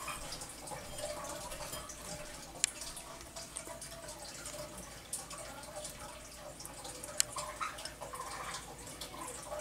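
Nile monitor eating hard-boiled egg from a ceramic bowl: small wet mouth clicks and smacks, with two sharp clicks, one near 3 seconds in and one about 7 seconds in, over a steady background hiss.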